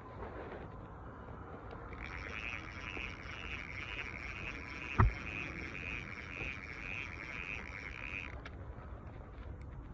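Frogs calling in a high, pulsing trill for about six seconds, with a single sharp knock about five seconds in.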